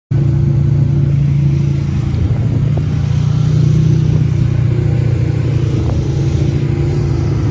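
A motor vehicle's engine running at a steady speed, a loud, even drone that cuts in suddenly at the start.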